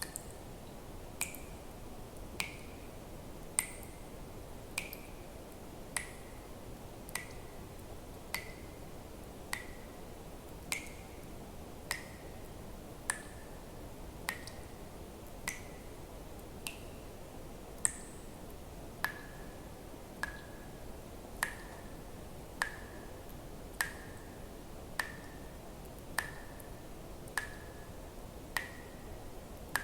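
Water drops falling one at a time into water at an even pace, about one every second and a bit, each a sharp click with a brief plink, over a steady low hiss.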